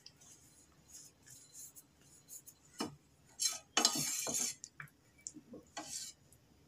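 Steel spoon stirring in a stainless steel pot of thin, watery curdled milk with cornflour, clinking and scraping against the pot at irregular moments, with a longer scrape about four seconds in.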